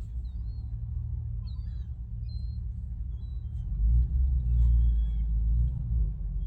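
A steady low rumble that swells louder about four seconds in, with faint, high, short calls of gulls scattered over it.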